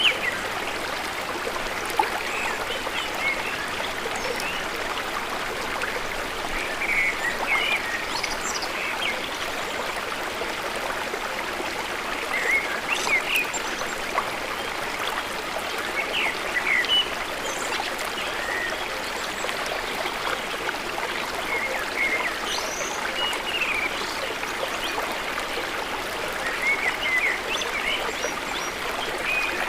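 Running stream with birds chirping briefly now and then.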